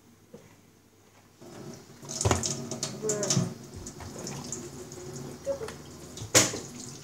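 Kitchen tap water running into the sink as dishes are washed, starting about a second and a half in. Over it come two sharp knocks, about two seconds in and a louder one near the end, from the small flipped bottle landing on the hard worktop.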